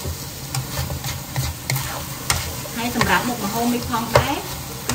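A spatula scraping and knocking against a wok as pork and mushrooms are stir-fried, with a steady sizzle of frying underneath. There are many short scrapes and taps throughout.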